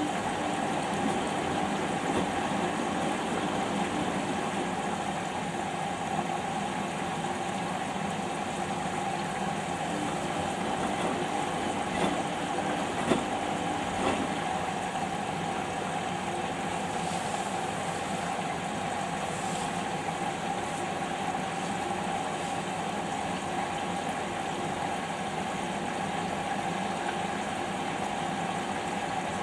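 Samsung washing machine running its 15-minute quick wash, the motor and drum humming steadily with a couple of brief knocks around the middle.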